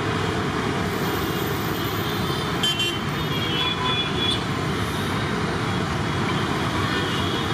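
Steady road traffic noise, with a brief faint high tone around the middle.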